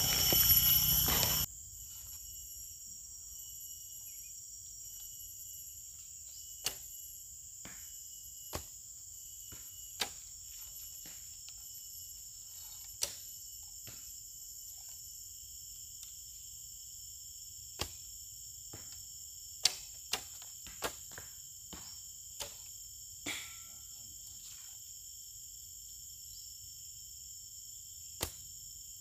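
Horsebows being shot: about a dozen short, sharp snaps at irregular intervals, several close together in the middle, over a steady high-pitched chirring of insects.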